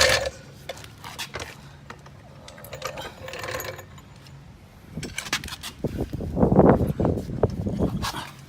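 Metallic clinks, knocks and rattles from a floor jack being rolled and set under the car's lifting point, loudest in a cluster of knocks from about five seconds in.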